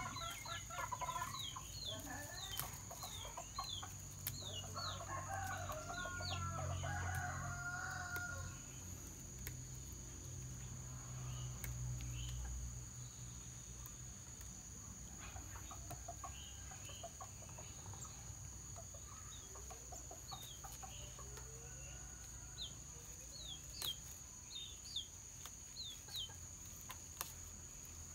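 Domestic chickens clucking, with a rooster crowing about six seconds in, over a steady high-pitched insect drone.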